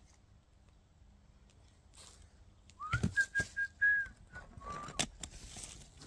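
A person whistling a short phrase, about three seconds in: a note sliding up into a few short level notes, then one lower note. A couple of sharp knocks come along with it.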